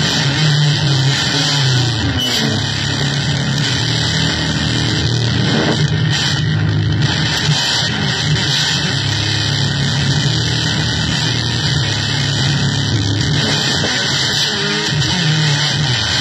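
Harsh electronic noise music from keyboard and drum machine: a loud, dense wall of hiss over a low drone, with pitches sliding up and down through it.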